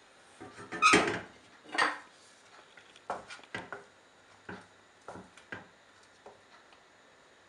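A slotted wooden spatula knocking against a nonstick saucepan. Two louder knocks come about a second apart near the start, then a string of lighter taps.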